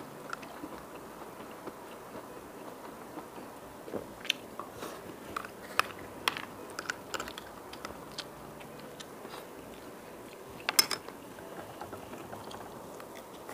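Close-up eating sounds: chewing, with scattered clicks and scrapes of a plastic spoon on a plate. A quick cluster of sharp clicks about eleven seconds in is the loudest moment.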